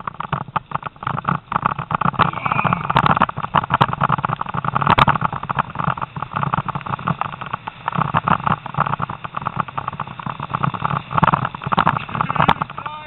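Steady rattling and knocking with wind noise from a camera carried at speed behind two malamutes pulling a musher along a grass trail.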